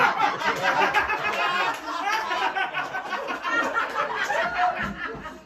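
Audience laughing and chattering, many voices at once, dying down near the end.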